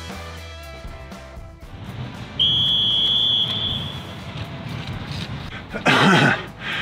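Background music, with one shrill, steady whistle blast held for about a second near the middle. Near the end comes a loud, hoarse gasp for breath from a runner exhausted after a 12-minute running test.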